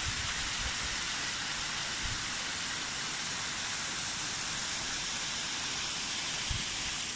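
Steady rush of fast-flowing water, with a brief low thump near the end.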